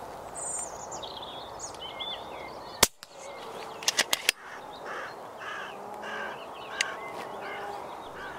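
Hooded crows calling outdoors, a repeated call about twice a second through the second half, with higher bird calls in the first couple of seconds. A few sharp clicks come near three and four seconds in.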